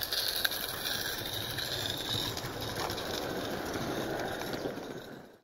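A 16mm-gauge live-steam model locomotive and its coaches running past on garden-railway track: a steady hiss and rattle of steam and wheels on the rails, fading out at the end.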